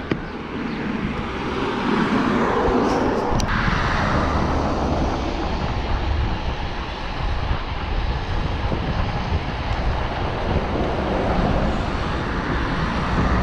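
Steady rushing and rumbling noise of wind on the microphone while cycling.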